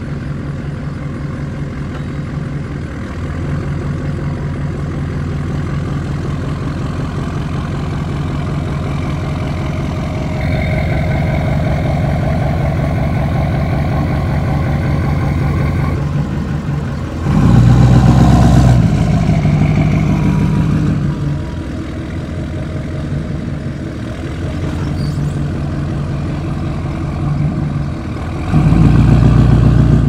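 A 6.6-litre LML Duramax V8 turbodiesel pickup engine runs with an even pulsing as the truck moves slowly across the yard. Two loud throttle bursts come about 17 seconds in and again near the end.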